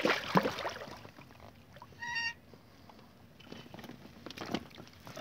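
Water splashing and knocking at the side of the boat as a hooked pike is brought in on a spinning rod, loudest in the first half-second, with a brief high tone about two seconds in.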